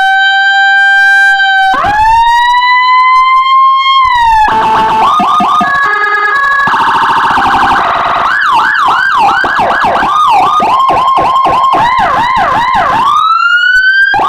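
Electronic police-escort siren (CJB 200 W siren module through a TOA horn speaker, with Whelen HHS3200-style tones) cycling through its tones: two slow rising wails that level off, then quick short chirps, a harsh buzzing tone, and a fast rising-and-falling yelp of about three sweeps a second, before a new rise begins near the end.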